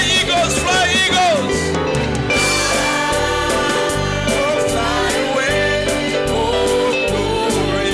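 Gospel worship song with singing over guitar, bass and a steady drum beat.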